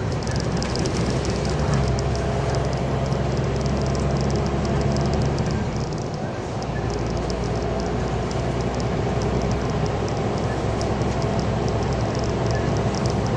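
Scania G410 lorry's 13-litre inline-six diesel running under way at night, heard from inside the cab as a steady engine hum with road and cab noise. The engine note dips briefly about halfway through and then carries on.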